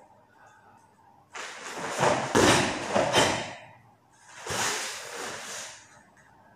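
Karate gi swishing and snapping with fast punches and blocks: a cluster of about three sharp snaps two to three seconds in, then another swish about a second later.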